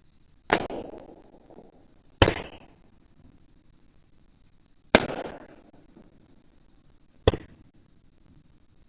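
Aerial fireworks bursting: four loud bangs a couple of seconds apart, each trailing off in a fading echo. The last bang is short and sharp.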